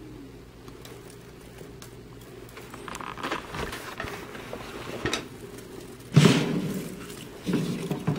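Low steady hum, then handling noise as the camera is moved about: rustling and light clicks from about three seconds in, a loud thump about six seconds in, and another thump near the end.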